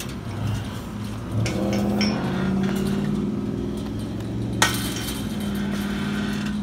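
Steel chain and padlock clinking against the posts of a chain-link gate as it is handled and swung, with a few light clicks and one sharp metal clank about four and a half seconds in. A low steady engine hum runs underneath.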